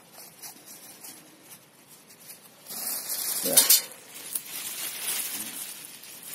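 Black plastic garbage bag rustling and crinkling as it is pulled out of a metal bucket and handled, becoming loud about a third of the way in and loudest a little past halfway.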